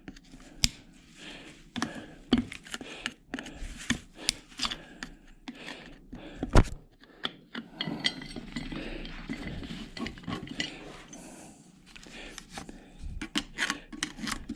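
Hand tools working apart a washing machine motor: irregular clicks, scrapes and knocks of metal and plastic, with one louder knock about six and a half seconds in.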